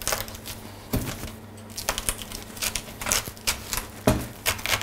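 Kitchen knife cutting the core out of a head of white cabbage: irregular crisp crunches and clicks as the blade works through the firm leaves, a few of them louder, about a second in and near the end.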